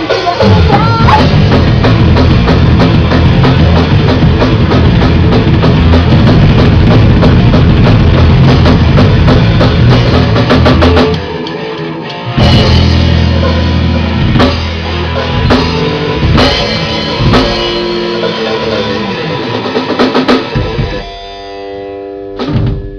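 Live metal band playing loud and instrumental: bass guitar, electric guitar and drum kit in a dense, driving passage, then breaking about halfway into a run of hard stop-start hits from the whole band, and closing on a ringing held chord.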